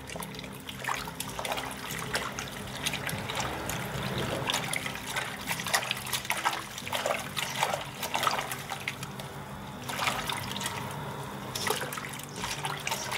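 Hands swishing and rubbing thin-sliced raw potatoes in a stainless steel bowl of water, with continuous sloshing and small splashes, as the starch is washed out of the slices.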